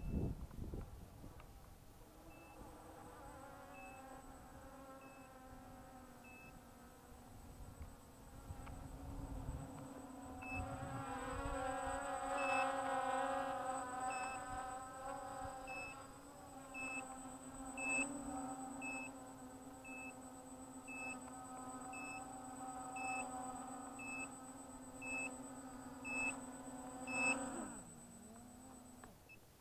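A small quadcopter hits the ground with a thump, then lies there with a steady electrical buzz from its brushless motors and speed controllers and a short high beep that repeats, at first about every second and later about twice a second. Near the end the buzz slides down in pitch and stops.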